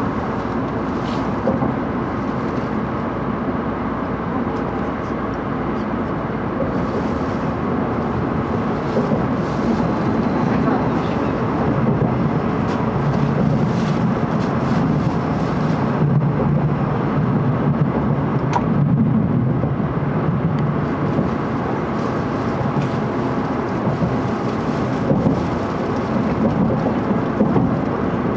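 Cabin noise inside a moving 700 series Shinkansen car: a steady rumble of the train running on the track, growing deeper and a little louder about twelve seconds in.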